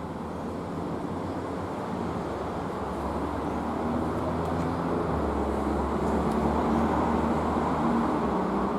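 Steady road traffic noise with a low engine hum, growing a little louder after the middle.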